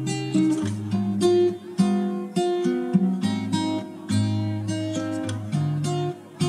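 Background music: acoustic guitar playing plucked notes and chords, a new one about every half second.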